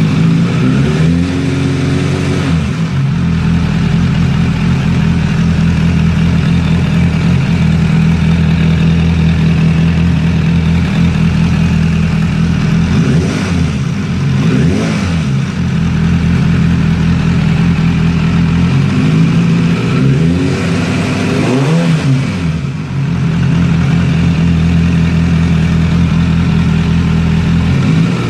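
Suzuki Bandit 600 inline-four engine running hot at idle, blipped several times so the revs rise and fall. The owner hears engine clatter and, on opening the throttle, a kind of vibration noise that he cannot identify.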